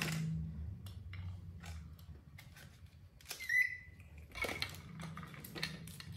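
Knife cutting a pomegranate and pieces set down on plates: a string of small clicks and knocks, with a short high squeak about three and a half seconds in.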